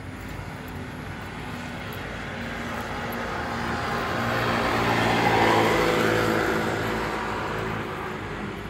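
A motorcycle passes along the road, its engine growing louder to a peak about five and a half seconds in, then fading away.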